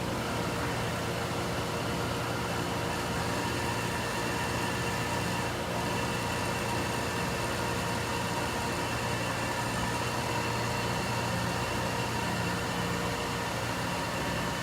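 Large Froriep CNC vertical boring mill running: a steady machine hum with several constant whining tones over a hiss, without change.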